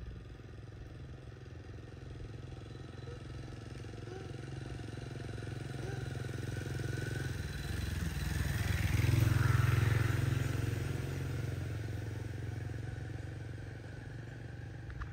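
A motor vehicle's engine passing by, a steady low drone that grows louder, peaks about nine to ten seconds in, then fades away.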